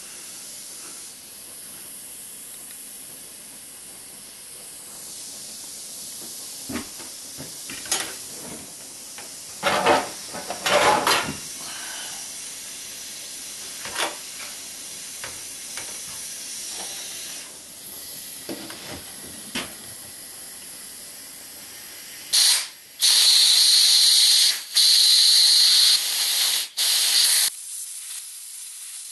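Compressed air from an air blow gun blasting through a propane heater's regulator in several loud hissing bursts near the end, the longest lasting about two seconds. It is blowing out oil built up inside the regulator and line, the likely reason the heater won't light. Before that there are scattered clicks and knocks of metal parts being handled.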